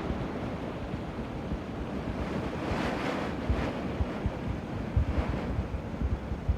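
A small burn in spate after heavy rain, its water rushing steadily in full flow. Wind buffets the microphone in irregular low thumps.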